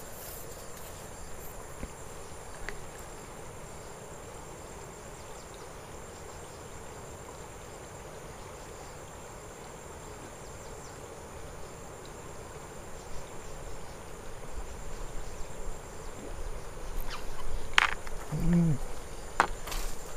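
Steady high-pitched insect drone over a faint, even rush of flowing river water. In the last few seconds there is low rumbling and a couple of sharp clicks, with one brief pitched sound among them.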